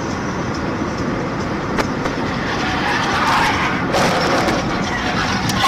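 Steady tyre and wind noise of a car travelling at highway speed, heard from inside the car. About three seconds in, a louder scraping noise rises as another car slides into the metal guardrail alongside.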